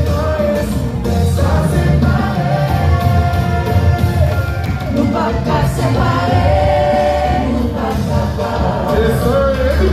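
Love song playing: a lead singer's voice over a steady bass line.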